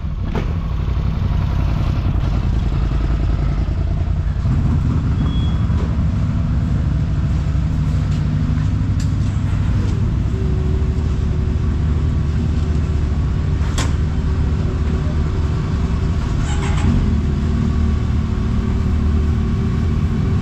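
Quad and side-by-side engines idling steadily close by, with one sharp click about two-thirds of the way through.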